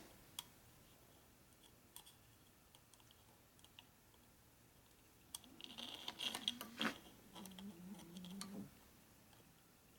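Faint metal clicks and scraping as a small spring retaining clip is worked off a shaft in an aluminium engine case. The clicks are scattered at first, then bunch together about six to seven seconds in.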